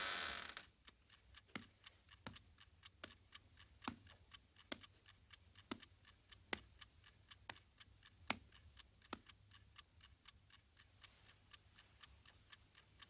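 Mechanical wind-up alarm clock ticking quietly and steadily, sharp ticks a little under a second apart with fainter ticks between. A louder noisy sound cuts off about half a second in.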